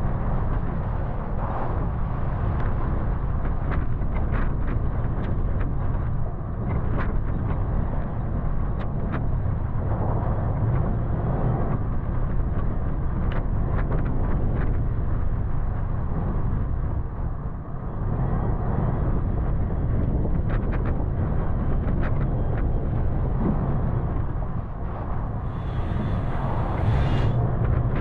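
Toyota FJ Cruiser's 4.0-litre V6 and drivetrain running in a steady low rumble while driving a rough dirt trail, with scattered clicks and knocks from the tyres and suspension, and a short hiss near the end.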